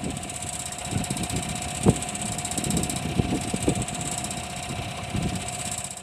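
A small engine running steadily at idle, with a few dull knocks over it, the sharpest about two seconds in.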